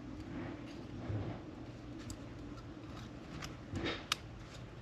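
Light metallic clicks and ticks of a piston ring being fitted by hand into its groove on a piston, the sharpest click about four seconds in, over a faint steady low hum.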